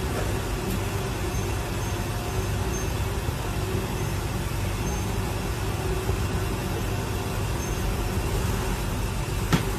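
Steady background noise, a low hum under an even hiss, with one sharp click near the end.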